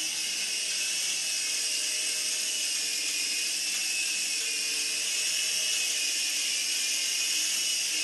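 Small toy remote-control helicopter with stacked twin rotors hovering, its electric motors and rotors giving a steady high-pitched whine with a hiss.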